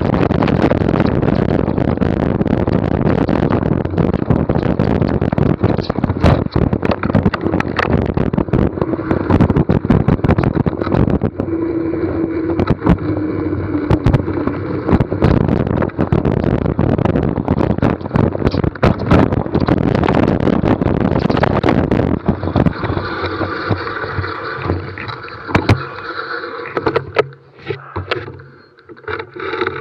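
NS Bikes mountain bike descending a dirt trail: a constant rough rush of tyres and wind with rapid rattling and clattering from the bike over rough ground. It eases off near the end as the bike slows.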